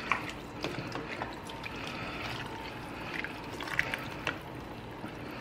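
Shredded cabbage and broth being stirred in a soup pot with a metal slotted spatula: wet rustling and liquid sounds with scattered small clicks.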